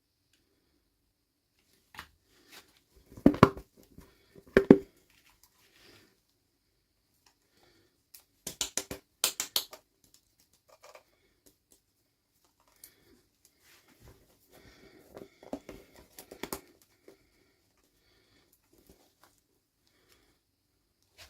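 Hands unboxing small toys: sharp plastic clicks and taps with light crinkling of packaging, in short clusters separated by quiet pauses.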